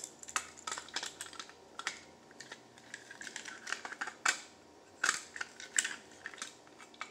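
Irregular light clicks and taps of a small screwdriver working a screw in a small plastic toy train engine, the plastic body ticking as it is handled, with a few sharper clicks about four to six seconds in.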